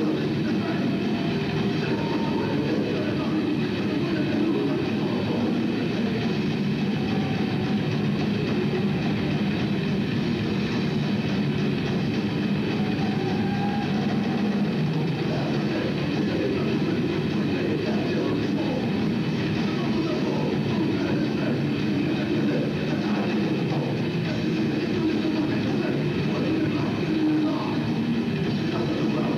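Metal band playing live: distorted electric guitars, bass and drums in a dense, unbroken wall of sound at a steady level.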